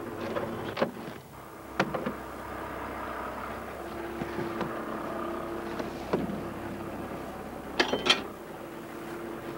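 A small longline fishing boat's machinery running with a steady hum, broken by several sharp knocks and clanks of gear, two close together near the end, as a tangled longline is dealt with on deck.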